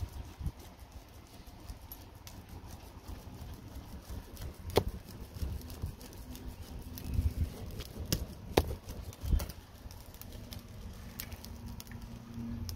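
A woven straw hand fan flapped over a charcoal fire, making uneven airy flaps and gusts, with a few sharp clicks now and then.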